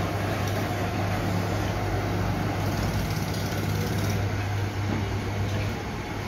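A machine running steadily with a low drone, amid workshop noise; the drone drops away near the end.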